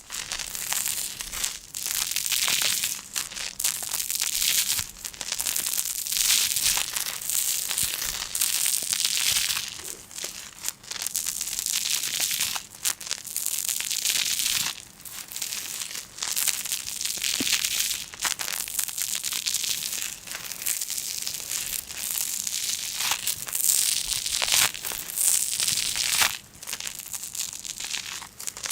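Crinkly sheet material being crumpled and folded by hand: a dense, crackling rustle that comes in swells of a second or two with short breaks between them.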